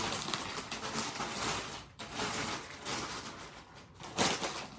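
Rustling and handling of packaged snacks: an uneven noisy crinkling that comes and goes.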